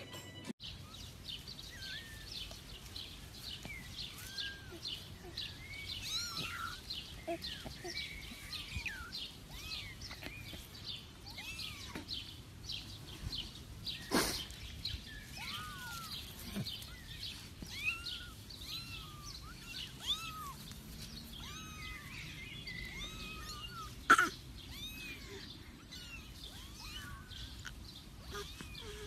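Kittens mewing over and over in short cries that rise and fall in pitch, with birds chirping in the background. Two sharp knocks, one about halfway through and one near the end, are the loudest sounds.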